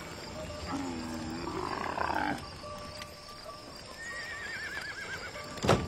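Animal calls: a low groaning call about a second in, then a horse's trembling, falling whinny. A sharp knock near the end, the loudest sound, fits a car door shutting.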